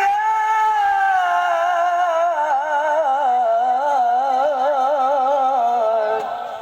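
A single voice chanting Qur'anic recitation, holding one long melismatic note that rises, wavers in quick ornamental turns and fades away near the end.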